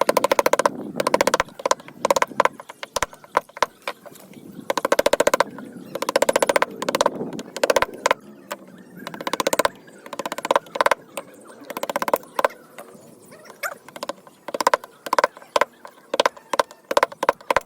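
Rapid knocking on wood: runs of quick strikes about a second long, several times over, with single knocks in between, each strike ringing at the same two pitches.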